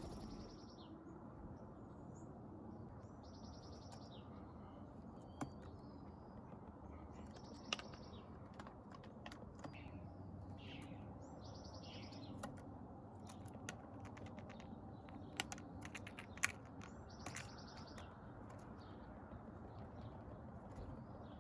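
Wild birds calling: a short buzzy, rasping call repeats about every three to four seconds, with smaller high chirps between. A few sharp clicks stand out over a low steady background.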